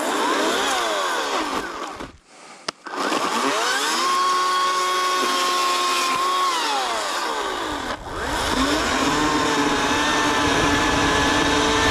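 Ryobi cordless electric chainsaw cutting into a dead tree trunk: a motor whine that stops briefly about two seconds in, then winds up again and sinks in pitch as the chain bites into the wood. It dips once more near the middle, then speeds back up and holds steady.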